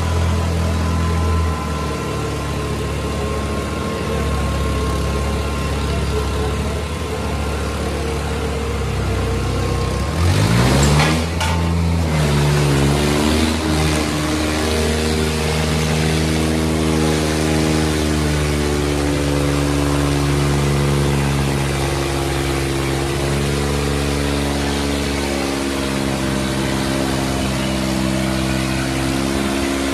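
Kubota 5501 and New Holland 3600 diesel tractor engines running hard under full load as the two tractors, chained together, pull against each other. About ten seconds in, an engine's pitch climbs sharply as it revs up, then holds steady at the higher speed.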